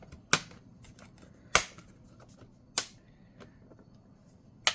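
Four sharp plastic snaps, spaced a second or more apart: the laptop's plastic case being pried open as its snap-fit clips release.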